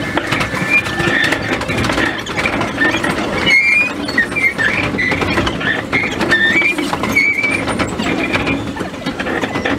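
Choshi Electric Railway 3000-series railcar running on the rails, with rumbling running noise and a string of short, wavering high squeals from its running gear through the middle, sped up fourfold.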